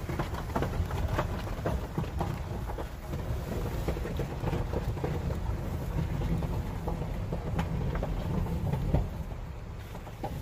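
Honda Ridgeline pickup rolling slowly across a bridge: a steady low tyre-and-road rumble with frequent small crackles and pops of gravel crunching under the tyres.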